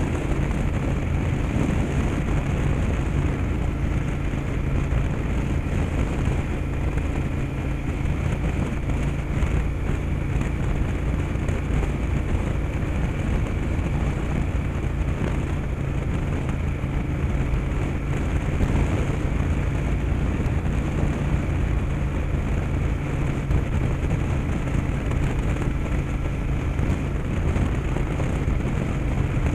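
Yamaha TDM850's parallel-twin engine running steadily at a cruise, with wind and road noise on the camera mic.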